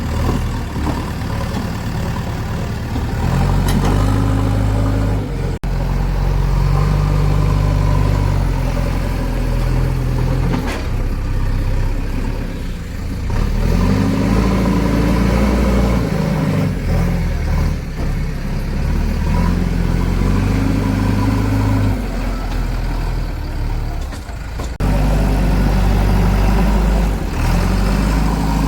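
Diesel engine of a JCB 3DX backhoe loader running under load, revving up and dropping back again and again as the machine works. The sound breaks off sharply twice.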